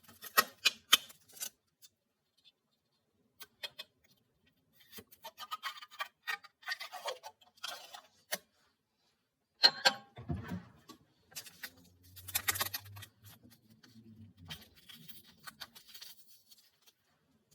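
Scattered clicks, taps and short rustles of small objects being handled, with a low steady hum for a few seconds past the middle.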